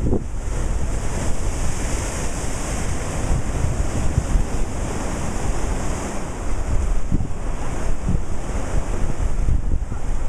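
Ocean surf breaking against shoreline rocks and washing back, a steady rushing hiss that swells twice, with wind buffeting the microphone in a low rumble.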